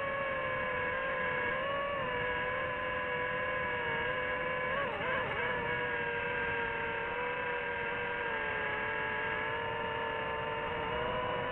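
DJI FPV drone's motors and propellers whining steadily in flight, the pitch wavering slightly and wobbling briefly about five seconds in.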